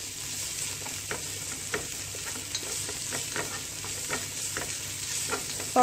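Sliced onion with chopped ginger, garlic and green chilli sizzling steadily in hot olive oil over a high flame, with a spatula scraping and clicking against the pan as it is stirred.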